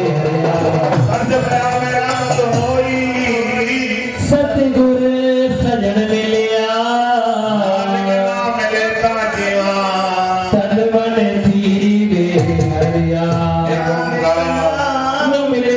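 A man singing a devotional song into a microphone, with a musical accompaniment.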